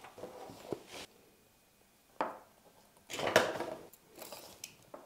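Denim jeans and a tape measure being handled on a wooden table as the jeans are laid out and measured: short bursts of rustling and scraping, loudest a little past the middle.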